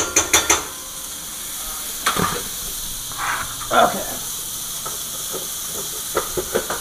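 Chicken frying in butter in a pan, giving a steady sizzle, with a quick run of clicks at the start and a few clatters of pots and utensils.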